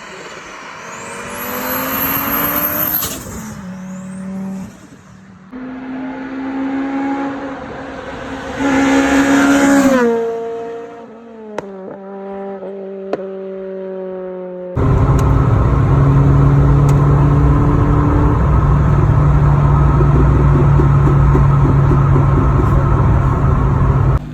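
Rally car engines at full throttle, the pitch climbing through the gears, then dropping off as a car lifts and brakes, with a couple of sharp pops. About two-thirds of the way in it switches abruptly to a loud, steady engine drone held at constant revs, which cuts off suddenly.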